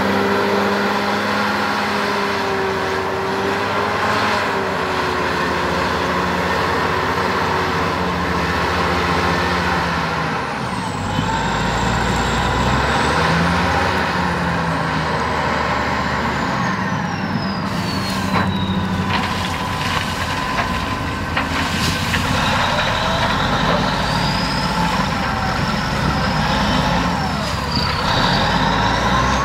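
Clark Michigan 475B wheel loader's diesel engine working under load as it lifts its bucket over a dump truck, the engine note shifting partway through. High whining tones glide up and down over it, with a few sharp knocks in the middle.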